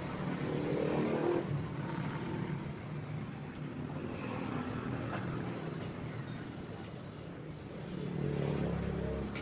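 Motor vehicle engines running nearby over steady background noise, swelling about a second in and again near the end as vehicles pass.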